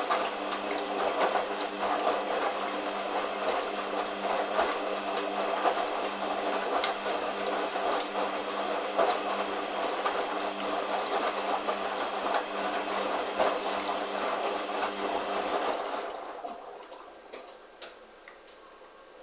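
Hoover washing machine with water rushing through it over a steady electric hum, cutting off about sixteen seconds in and leaving faint ticks.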